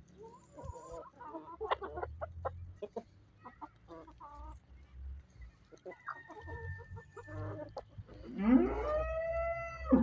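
A flock of chickens clucking in short, scattered calls as they feed. Near the end a rooster crows once, one long call that rises and then holds its pitch.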